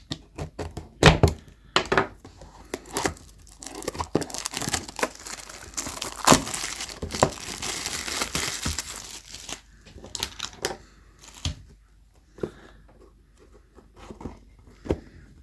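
Plastic wrap being torn off a sealed trading card box and crumpled, with sharp crackles and snaps. The noise is densest in the middle and thins out toward the end.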